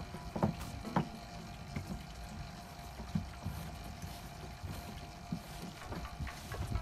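Hands handling a grey PVC pipe fitting and a green plastic ring against a hollow white plastic tank: light rustling and scraping, with a few sharp plastic taps, two close together near the start, then one about three seconds in and another about five seconds in. A faint steady tone runs underneath.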